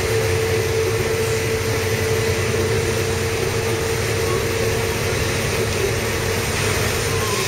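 Chain-driven lift machinery running, a steady mechanical drone with a constant hum under it.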